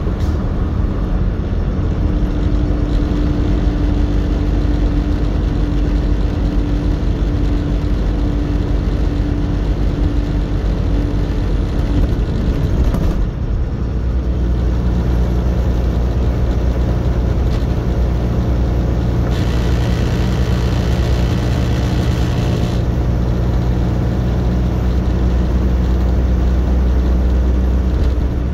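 Steady engine and road noise inside a truck cab at highway speed, with a short dip about halfway through.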